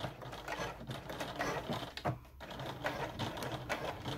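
Electric sewing machine stitching slowly through a thick, layered seam, with a brief pause about two seconds in.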